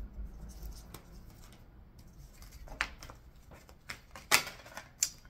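A deck of tarot cards being shuffled by hand, with a series of short sharp card slaps and flicks in the second half, the loudest about four seconds in.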